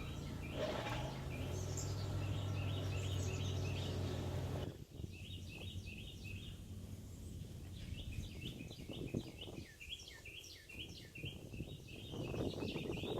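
Wild songbirds singing, rapid runs of short, high, repeated chirping notes. A low steady hum under the first few seconds stops abruptly.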